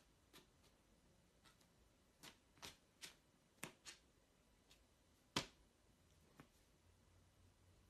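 Near silence with faint, scattered taps and clicks as a cat paws at a sheet of paper on a bed; the loudest tap is about five and a half seconds in.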